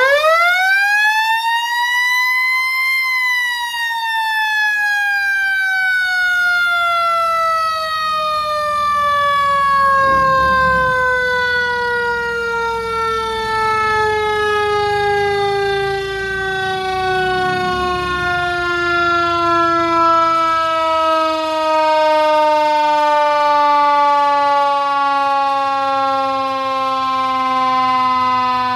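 Mechanical Q siren winding up quickly to a high wail over about three seconds, then winding down in one long, slowly falling wail as it coasts.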